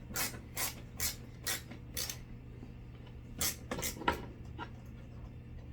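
Sharp clicks and small knocks, about two a second, from a screwdriver working fittings into flat-pack furniture hardware; they pause about two seconds in and resume about a second later.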